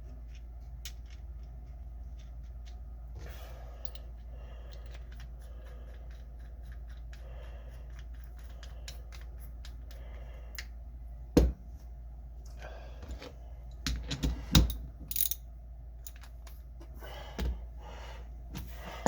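Click-type torque wrench being handled and adjusted by hand: light metallic ticks and clicks, with a few sharper, louder clicks past the middle.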